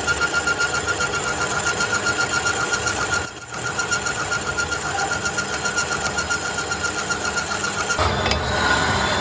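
Metal lathe running, a hand-held cutting tool scraping inside the bore of a spinning steel sleeve, with a fast even pulsing and a steady high whine. The sound dips briefly a little over three seconds in and turns steadier and fuller about eight seconds in.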